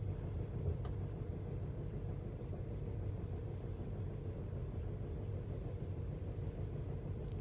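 Steady low rumble of an old sleeper-train carriage running on the rails, heard from inside the car, with an occasional faint click.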